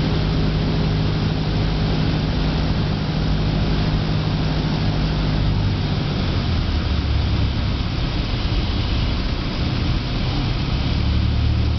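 Cessna 172's propeller engine droning steadily inside the cabin, with rushing airflow. About six seconds in the engine note drops lower as power comes back for the landing.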